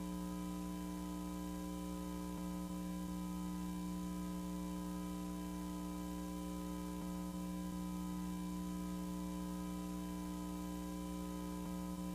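A steady electronic hum built of several held low tones, with a faint hiss over it, unchanging throughout.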